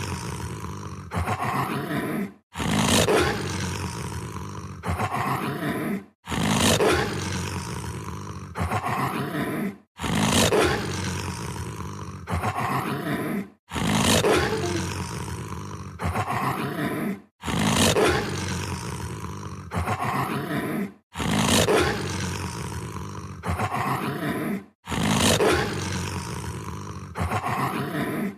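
Werewolf creature sound effect: a loud, beast-like roar that starts at its loudest and fades over about three and a half seconds. The same roar repeats in a loop about eight times, with a brief silence between repeats.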